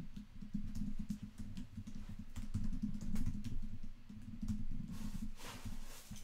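Typing on a computer keyboard: a run of irregular key clicks over a low steady hum.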